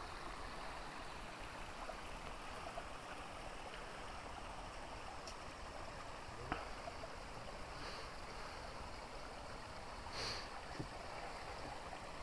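Mountain stream running steadily, an even rush of water, with one faint knock about halfway through.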